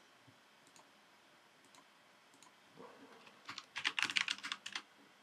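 Typing on a computer keyboard: a few scattered keystrokes, then a quick burst of rapid typing about three and a half seconds in.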